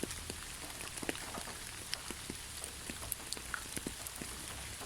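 Rain falling steadily as a soft hiss, with many individual drops ticking and tapping irregularly on a surface.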